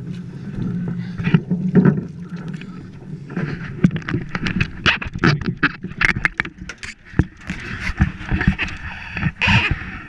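Handling noise on the camera: fabric rubbing and scraping against the microphone, then a fast run of clicks, knocks and bumps from about three and a half seconds on, over the wash of river water around a wading angler at a boat's side.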